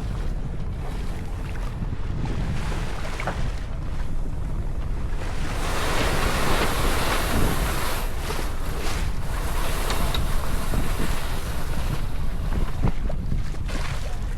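Wind buffeting the microphone and water rushing past the hull of a sailing yacht under sail, with a louder rush of water through the middle.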